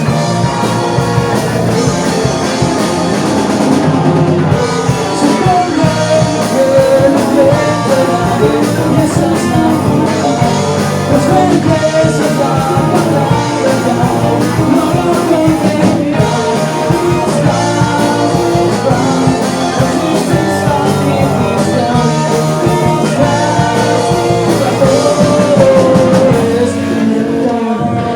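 A band playing a rock-style song, with a singer over electric guitar and drum kit.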